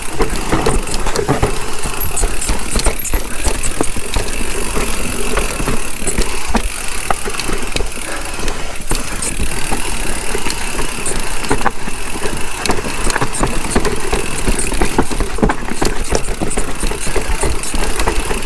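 Mountain bike descending a rough downhill trail at speed: a steady rush of wind and tyre noise with constant rattling and clicking from the bike as it rides over the terrain.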